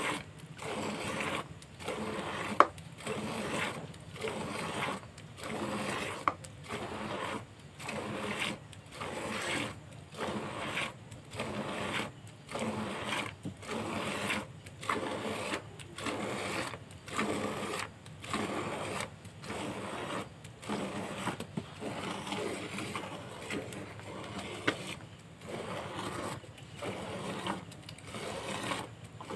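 Hand milking: jets of milk squirting from the teats into a plastic bucket of frothy milk, a steady rhythm of a little more than one squirt a second. A sharp click sounds twice, a few seconds in and near the end.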